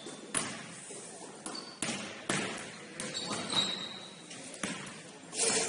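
Basketball game sounds: a basketball bouncing on a court floor in irregular knocks, with short high sneaker squeaks, one of them longer about midway. A louder knock comes near the end.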